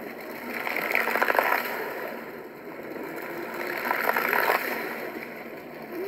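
Fountain water jets splashing down into the pool, the splashing swelling twice in surges about three seconds apart.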